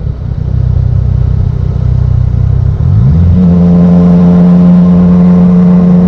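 Yamaha MT-09's inline three-cylinder engine through a Black Widow carbon full exhaust: off the throttle with a low, rough burble for the first three seconds, then the revs rise quickly and it holds a steady pitch under throttle.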